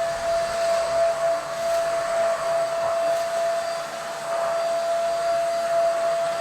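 KT-5105-2 upright corded vacuum cleaner running steadily, a high motor whine over a rushing air noise, its level rising and falling a little.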